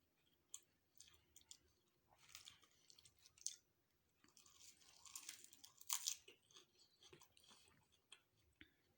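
Close-miked eating sounds: food being bitten and chewed with crunching, in two louder spells about two seconds in and again around five to six seconds in, with small clicks in between.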